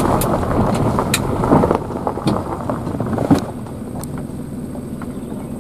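Low, steady rumble of a car's engine running, heard from inside the car, with a few light clicks and knocks; it eases a little after about three and a half seconds.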